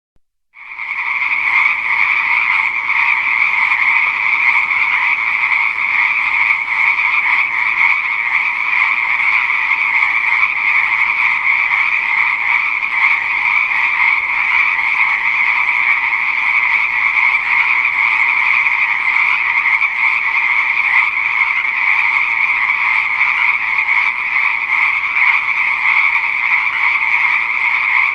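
Chorus of many pond frogs calling at once, a dense, unbroken din that fades in over the first second and holds steady.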